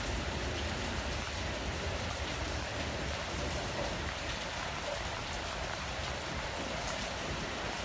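Steady rain falling on a station platform and tracks.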